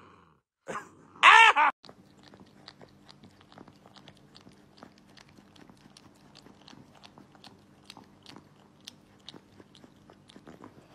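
A brief loud yelp about a second in, then a French bulldog puppy gnawing a hard chew stick: a steady run of small crunching clicks over a faint steady hum.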